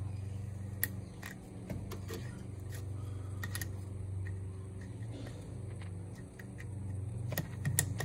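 Scattered small clicks and scrapes of a pick working at the plastic locking clip of a NOx sensor's wiring connector, several clicks together near the end, over a steady low hum.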